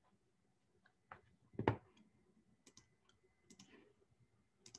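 A handful of faint, scattered clicks and light taps over quiet room tone, the loudest one about one and a half seconds in.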